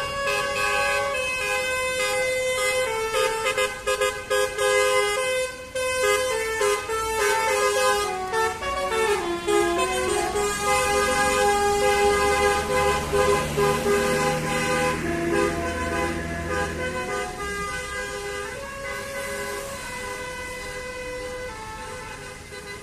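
Basuri multi-tone telolet bus air horn playing a melody of held notes that change in steps. A lower rumble joins for a few seconds in the middle, and the sound grows quieter near the end.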